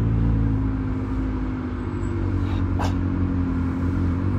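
Car engine running, heard from inside the cabin as the car moves slowly. Its note sags a little around the middle and picks up again near the end, with one brief click about three seconds in.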